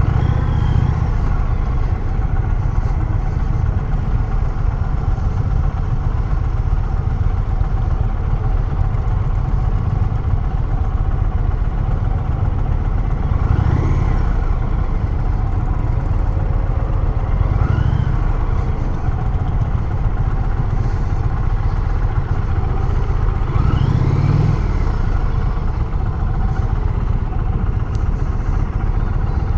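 Indian Pursuit's water-cooled V-twin running under way, a steady low rumble that swells and eases off a few times.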